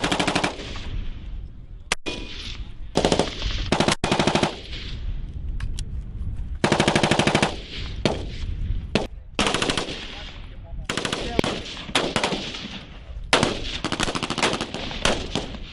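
Repeated short bursts of automatic machine-gun fire mixed with single rifle shots from several shooters on a firing range. The longest burst, about a second long, comes a little before the middle.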